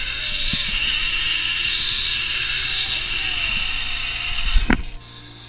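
Zip-line trolley pulleys running fast along a steel cable: a steady, high whirring hiss. It ends with a knock about four and a half seconds in and stops.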